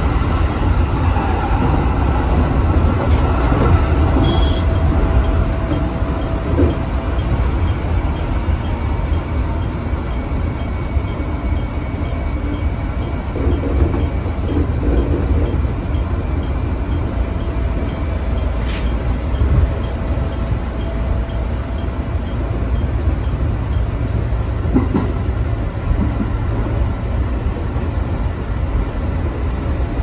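Electric commuter train running along the line, heard from inside its front cab: a steady low rumble of wheels on rail, with faint whining tones that come and go and one sharp click about two-thirds of the way through.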